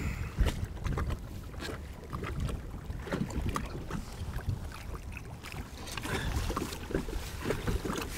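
Choppy water lapping and slapping against a plastic fishing kayak's hull, with wind rumbling on the microphone. Short knocks and splashes come throughout as a long-handled landing net is swung around and dipped into the water beside the boat.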